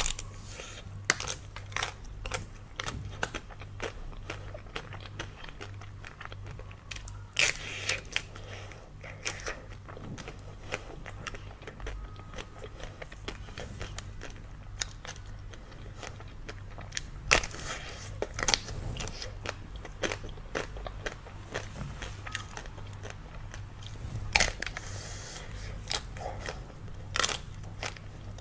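Close-up eating sounds of ice cream: crunchy bites and chewing with many sharp crackles, a few louder bites standing out, over a low steady hum.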